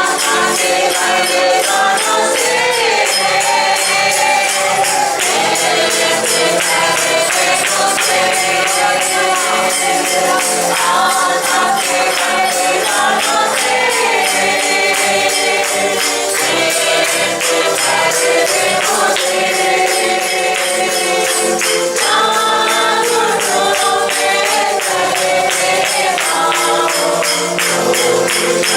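A group of voices singing a worship song, with a tambourine shaken and struck in a steady, fast beat.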